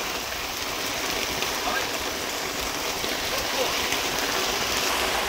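Heavy downpour falling on a paved road, a steady, even hiss of rain.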